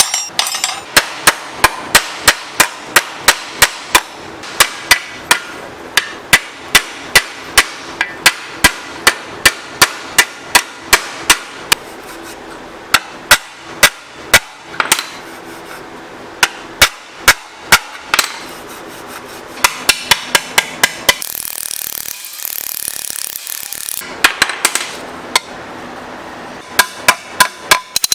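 A hammer striking repeatedly, many sharp blows at roughly two a second, with a few short pauses and a quieter stretch past the middle.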